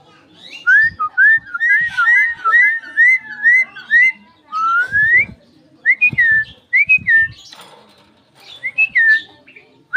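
Javan myna (jalak kebo) whistling: a quick run of short rising-and-falling whistled notes over the first four seconds, then a longer rising whistle and a few separate slurred whistles. Low dull thumps come in between the notes.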